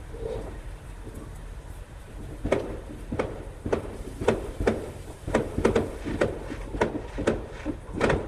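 A series of light knocks and taps, about two a second, starting a couple of seconds in over a low background rumble.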